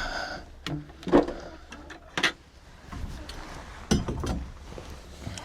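A few short, separate knocks and clatters, about four over the few seconds, from things being handled and bumped while working through a chicken coop.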